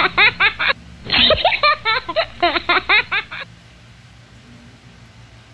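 Recorded giggling laughter played as an edited-in sound effect, the same burst repeating twice and cutting off suddenly about three and a half seconds in, leaving only a faint low hiss.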